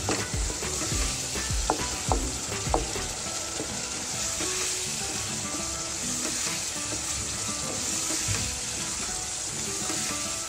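Keema (minced meat with tomatoes) sizzling as it fries in a pot while a wooden spoon stirs it. There are a few sharp knocks in the first three seconds.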